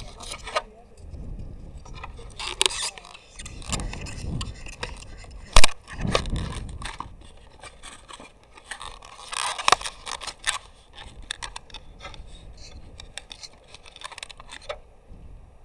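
Fingers handling small plastic figures and the plastic toy car body shell right at the microphone: irregular scraping, clicks and knocks, with one sharp, loud knock about five and a half seconds in.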